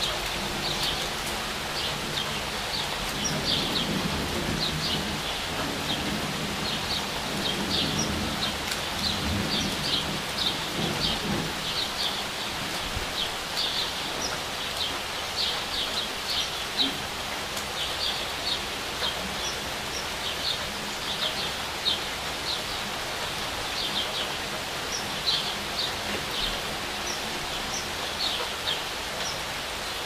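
Steady rain falling on tree leaves, with small birds chirping over it in quick runs of short high notes throughout. A low rumble sits underneath for roughly the first ten seconds.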